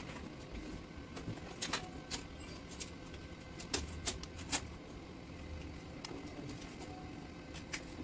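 Scattered light clicks and taps of hands handling a smart door lock's metal body and its plastic wiring connector, about half a dozen at irregular intervals.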